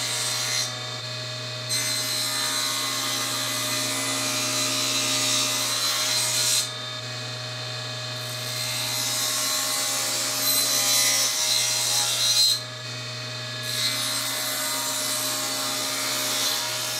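Table saw running with its blade tilted to 12 degrees, bevel-cutting a raised door panel held upright in a tenon jig. Several passes of a few seconds each, with the blade spinning free and quieter for about a second between them.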